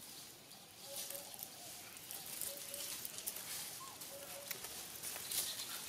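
Dry leaf litter rustling and crackling as macaques move and forage over it, in many small irregular ticks. A short mid-pitched call repeats about every second and a half in the background.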